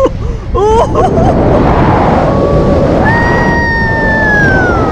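Strong wind rushing over the microphone of a paraglider-mounted camera in flight, a steady loud noise. A few short pitched chirps in the first second, then a long thin high tone that slowly slides down in pitch from about three seconds in.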